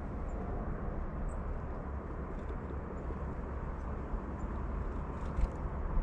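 Steady low outdoor background rumble, with a few faint sharp clicks near the end as a blue tit flies in to the sunflower seeds on the feeder stump.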